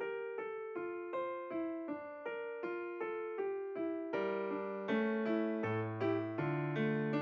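Background music: a piano-type keyboard playing a melody with lower bass notes, a new note about every half second.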